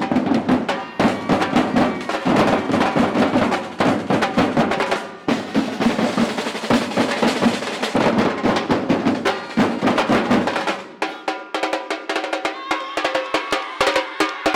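Samba percussion ensemble (batucada) drumming a dense rhythm. About eleven seconds in, the deep drums drop out and sustained pitched tones come in over quick, light strokes.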